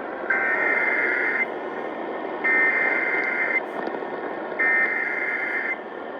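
Emergency Alert System SAME header: three bursts of data tones, each about a second long with about a second's gap between them, over radio static hiss. The header opens a National Weather Service severe thunderstorm warning.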